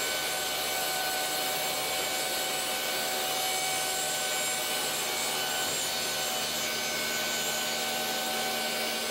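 Table saw running and trimming a thin strip, about 1/16 inch, off the edge of a wooden cabinet door pushed through on a sled: a steady motor whine over the noise of the blade cutting.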